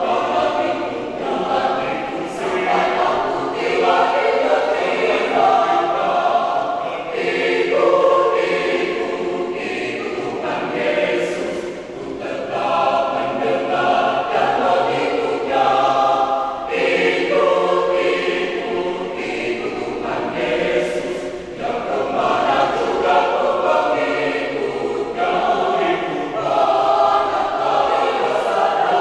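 Church choir of about twenty voices singing a hymn in harmony, in sustained phrases with short breaks between them.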